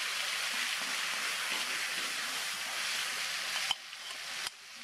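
Hot cooking oil in a wok sizzling steadily as a ground spice paste of red chilies and garlic is scraped in and starts to fry. A little before the end the sizzle drops much quieter, with a faint click.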